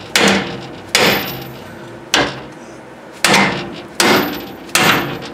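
Hammer striking the side of a steel steering centerlink (relay rod) eye six times, roughly once a second, each blow a sharp metallic knock with a short ring. The blows shock loose the tapered stud of a tie rod end seated in the centerlink.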